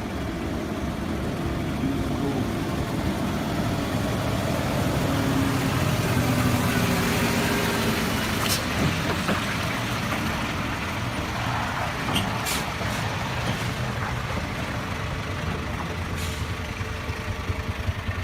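A heavy vehicle's engine runs steadily under a broad rushing noise, with a few sharp clicks or knocks about eight, twelve and sixteen seconds in.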